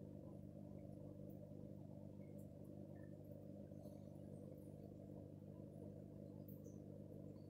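Near silence: a faint, steady low hum with a few soft scattered ticks.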